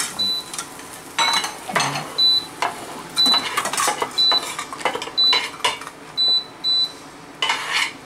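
Metal utensil knocking and scraping against a cooking pan while pasta is tossed in it, with sharp clanks about once a second, many of them ringing briefly at a high pitch.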